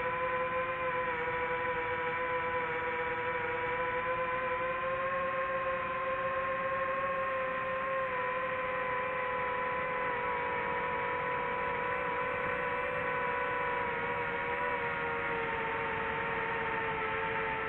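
DJI FPV drone's propellers and motors humming steadily in flight, the pitch drifting slightly up and down.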